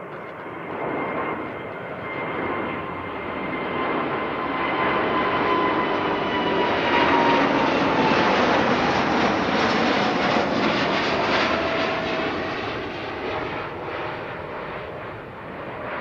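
Boeing 787 Dreamliner jet engines at takeoff power as the airliner climbs out past overhead. A loud rushing roar carries a whining tone that falls in pitch as the aircraft passes; it is loudest about halfway through, then fades slightly.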